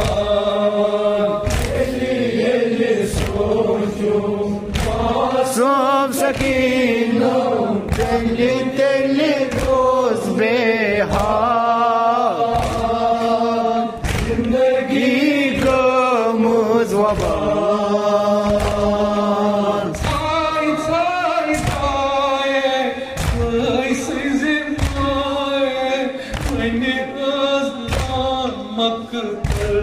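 Kashmiri noha, a mourning lament sung by a male reciter into a microphone, with other men's voices joining in. Regular thumps of hands beating the chest (matam) keep the beat under the singing.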